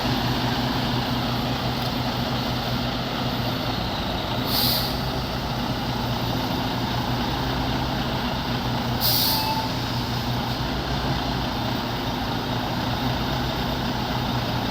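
Volvo VNL semi-truck's diesel engine running steadily, with two short hisses of air release from the air-brake system a few seconds apart.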